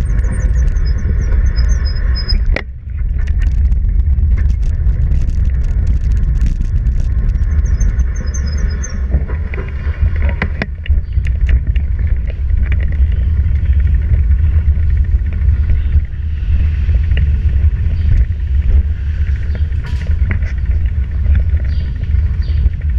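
Heavy, steady low rumble of a bicycle-mounted camera rolling over concrete, with vibration and wind on the microphone. A squealing tone over the first couple of seconds stops suddenly, followed by scattered clicks and rattles.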